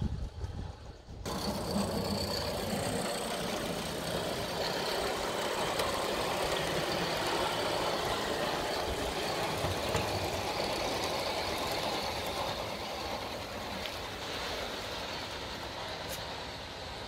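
Live-steam Gauge 1 model locomotive, an Aster SBB E3/3 'Tigerli', running with its train along garden track. The sound starts abruptly about a second in, stays steady, and drops away over the last few seconds as the train moves off.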